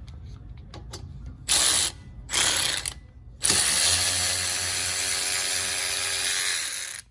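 Ratchet with a 7 mm Allen socket clicking as it backs out a brake caliper guide-pin bolt: two short bursts, then a long continuous run of about three and a half seconds.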